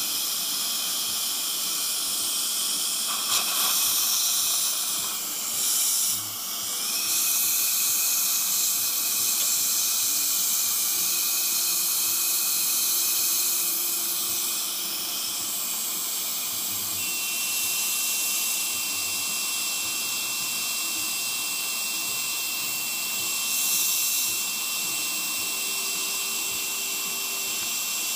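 Steady hiss of dental suction, with a thin steady high-pitched beep joining a little past halfway and holding to the end.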